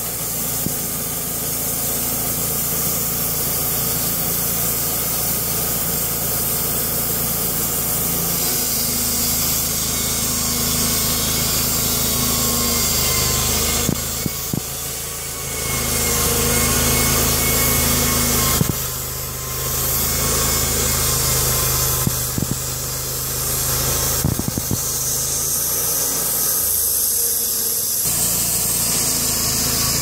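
Wood-Mizer LT35 portable band sawmill running, its engine-driven band blade sawing lengthwise through a log. The engine sound is steady, with a few brief dips and shifts in the second half.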